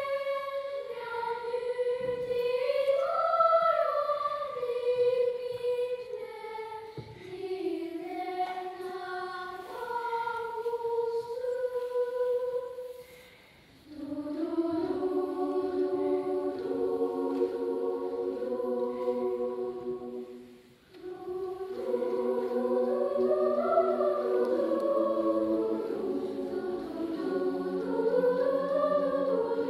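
Children's choir singing. A single melody line comes first; after a short break the choir sings in several parts in held chords, with another short break about twenty seconds in.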